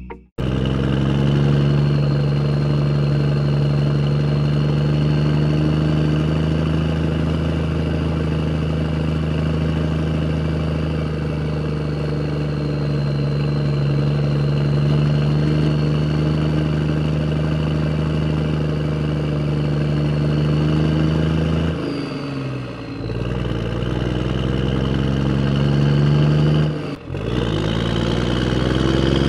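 A motor running steadily at a constant speed. Twice near the end it briefly slows, its pitch dropping, then speeds back up.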